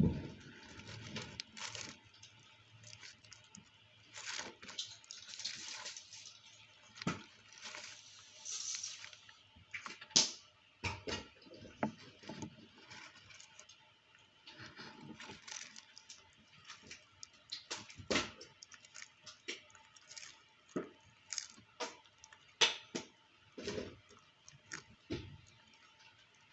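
Tortoise biting and chewing vegetables: irregular short crunches and clicks, thicker and more continuous for a few seconds in the first third.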